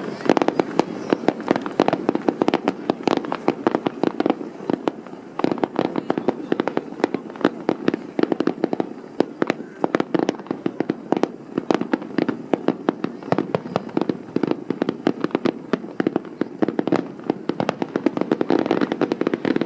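Aerial fireworks going off in a rapid, continuous barrage, many sharp bangs and crackles a second, with no break.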